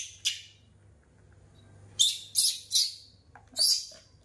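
Baby macaque giving short, high-pitched squealing cries: one near the start, then three in quick succession about two seconds in and a longer one near the end. These are the impatient begging calls of a baby wanting its milk.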